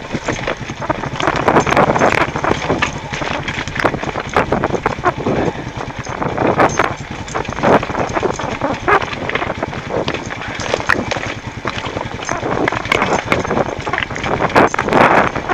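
Beta Alp 200 trail bike's single-cylinder four-stroke engine running on a rocky downhill, under a constant irregular clatter of knocks as the tyres and suspension bounce over loose stones.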